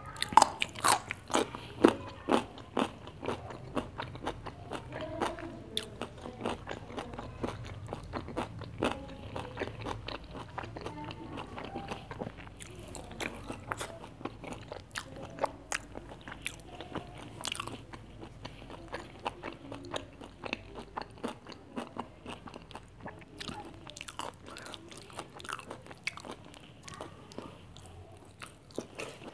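Close-miked biting and chewing of beetroot slices, a run of crisp crunches, loudest in the first couple of seconds, then steady chewing with wet mouth sounds.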